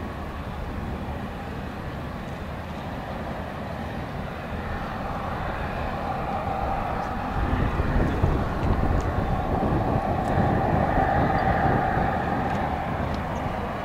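Boeing 787 Dreamliner's twin jet engines in flight, a steady jet noise that grows louder about seven seconds in as the airliner comes in on approach with its gear down.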